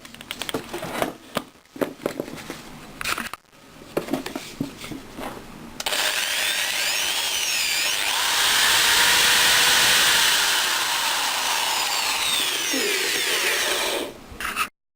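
Clicks and knocks of handling for the first few seconds, then a STARK ID 751Q 750 W impact drill switches on about six seconds in and runs at speed, its pitch rising and falling as the speed changes, before it stops near the end.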